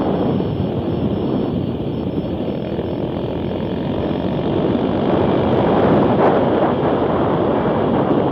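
Yamaha Raptor 700 quad's single-cylinder engine running under way on the road, largely covered by heavy wind rushing over the microphone.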